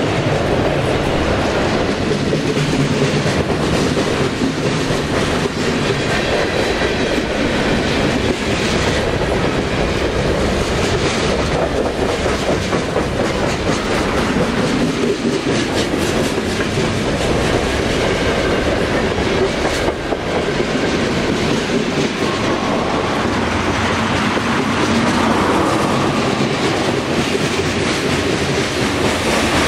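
Cars of a mixed freight train (autoracks, hoppers and tank cars) rolling past close by: a steady, loud rumble of steel wheels on rail, with occasional sharp clacks over the rail joints.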